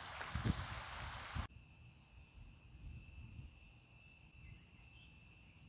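Outdoor ambience. First, a second and a half of wind hissing and rumbling on the microphone. After a cut, a faint, steady, high-pitched drone of insects holding one pitch.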